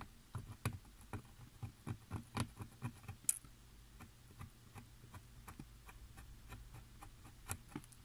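Faint, irregular scratching clicks as a tool scrapes the insulating film off a conductor track of a flexible flat cable lying on a metal plate, about three to four a second. A sharper click comes a little over three seconds in, after which the ticks thin out as the cable is handled.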